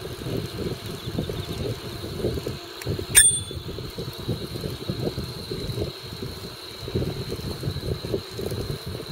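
Wind rumbling on the microphone of a moving bicycle, with a single short metallic bicycle-bell ding about three seconds in.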